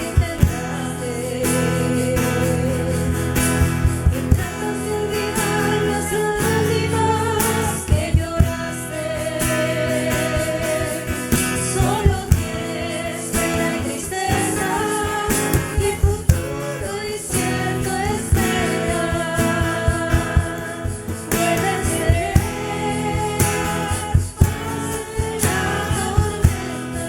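Christian worship song: voices singing a melody over guitar accompaniment with a steady beat.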